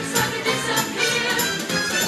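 Show choir singing with musical accompaniment, with a steady beat of percussion hits about twice a second.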